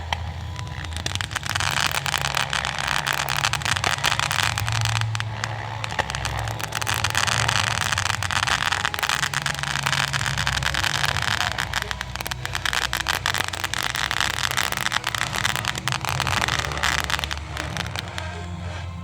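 Remote-control model helicopter humming steadily in flight while fireworks crackle densely from about a second in, the crackling thinning out near the end.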